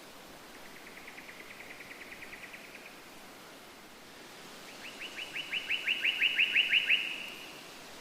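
A bird singing two rapid trills of short repeated notes, a fainter one near the start and a louder one in the second half whose notes each slide downward, over a steady background hiss.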